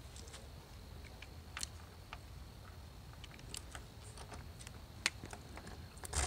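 Faint scattered clicks and taps of a stainless steel closed-loop hook and its bolts being handled against a school bus's sheet-metal side and fitted into drilled holes, with one sharp click about five seconds in and a short, louder scrape near the end.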